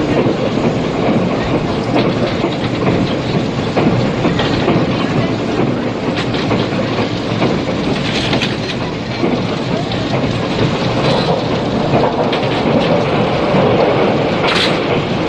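Interior running sound of a 485 series limited express electric train at speed: a steady rumble of wheels on rail with regular clicks of the rail joints, and one short sharp burst near the end. It comes from an old cassette recording, with tape noise and no high treble.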